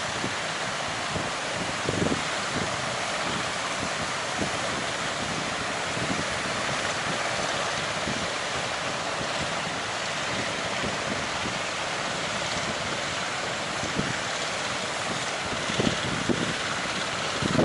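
Ocean surf and strong wind making a steady wash of noise, with gusts buffeting the microphone in low thuds every so often, more of them near the end.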